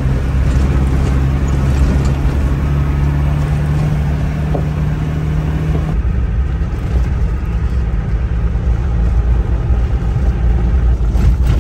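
Four-cylinder 200Tdi turbodiesel of a 1995 Land Rover Discovery running steadily while driving, heard from inside the cab, with a low drone and road noise. The engine note changes about halfway through.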